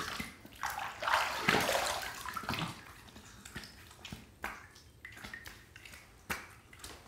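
Water splashing as cupped hands scoop water from a filled sink and throw it onto a lathered face, rinsing off shaving lather after the first pass. A run of splashes in the first few seconds, then a few fainter ones.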